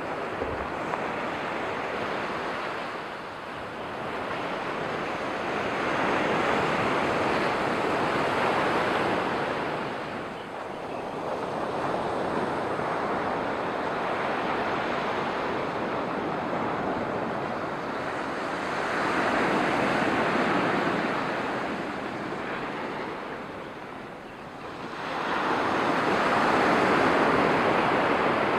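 Sea surf breaking along a pebble beach, a steady wash that swells and falls back in slow surges several seconds apart, the loudest near the end.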